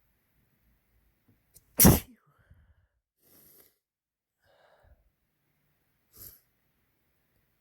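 One loud, sudden sneeze about two seconds in, followed by fainter breaths and a short, quieter puff of breath about six seconds in.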